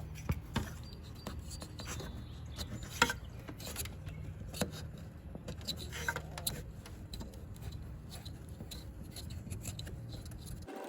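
Hand work on car parts: scattered small clicks, taps and rubbing of tools and metal parts over a steady low hum, which cuts off suddenly near the end.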